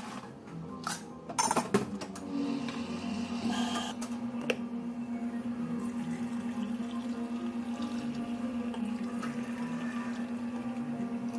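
Espresso machine pump starting about two seconds in and then running with a steady, even hum as water is pushed through the machine.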